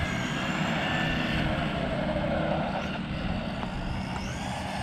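Electric motors of two RC cars, a brushless 1/10 monster truck and a 1/14 buggy, whining as they race on asphalt. The pitch rises and falls as they speed up and slow down, over tyre and drivetrain noise.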